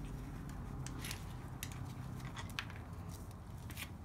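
Sparse, light metallic clicks and ticks of a socket wrench working a bolt on the fuel pump, irregularly spaced, over a low steady hum.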